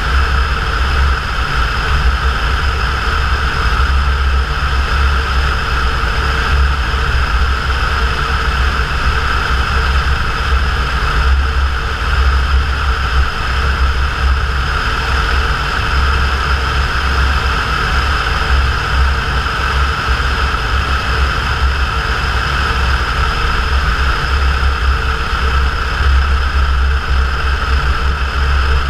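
Cessna 172 piston engine and propeller running steadily, a constant loud drone with no change in pitch.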